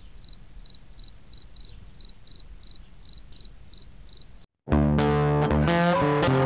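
A cricket chirping about three times a second over a faint hiss, stopping about four and a half seconds in. After a short gap, loud guitar-led music starts.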